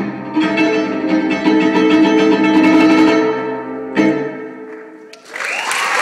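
Closing chords of a live song, guitar strummed with sustained bowed violin notes, ringing and fading out. About five seconds in, audience applause and cheering break out.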